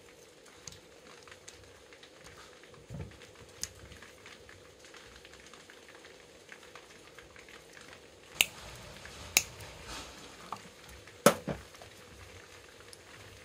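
Small scattered clicks and rustles of hands working on wiring and connectors, with a few sharper clicks in the second half, over a faint steady hum.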